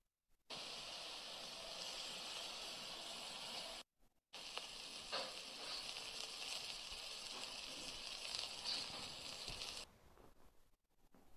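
Meat chops sizzling on a charcoal barbecue grill: a steady hiss with small crackles, broken by a short gap about four seconds in and cutting off near the end.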